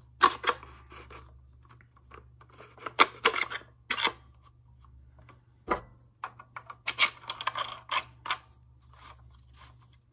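Handling noise of a foam-dart blaster's front end: a plastic barrel tube sliding and scraping against the blaster's plastic shell, with clicks of plastic parts. It comes in several short bunches: at the start, around three to four seconds in, near six seconds and again around seven to eight seconds.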